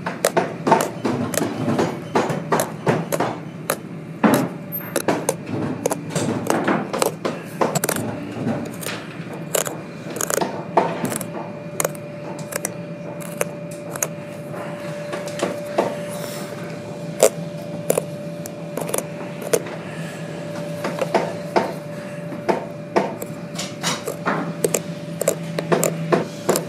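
A small hand blade cutting through the old welt stitching of a leather boot: irregular sharp clicks and snaps as threads part and the blade catches the leather, coming thick and fast at first and sparser later. A faint steady hum runs underneath.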